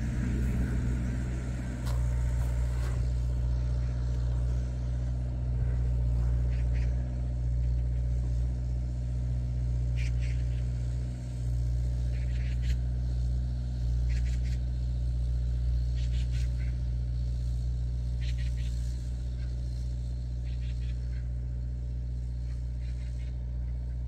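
Steady low rumble of a car driving, engine and tyre noise as heard inside the moving car, with a few faint light clicks.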